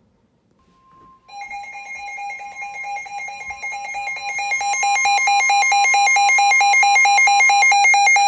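Emergency alert tones opening a severe thunderstorm warning: a faint steady weather-radio warning tone starts about half a second in, then a loud, rapidly warbling electronic alarm from the receiver takes over, growing louder over its first few seconds and holding steady.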